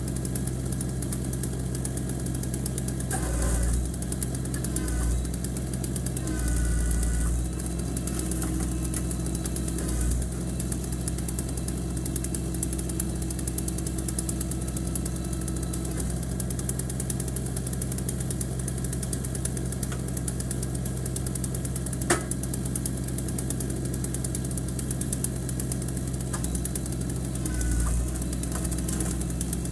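Engine idling steadily on a homemade firewood processor between cuts, with the mounted chainsaw not cutting. There are a few brief low surges, as if under load, and one sharp knock about two-thirds of the way through.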